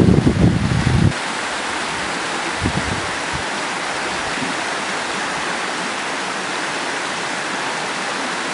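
Steady rushing of a mountain stream running over rocks, with low wind buffeting on the microphone in the first second and briefly again about three seconds in.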